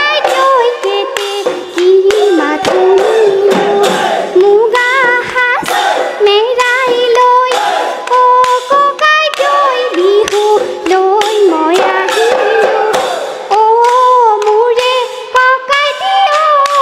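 Live Assamese Bihu folk music: a wavering melody line over steady dhol drum beats, small cymbals and hand clapping.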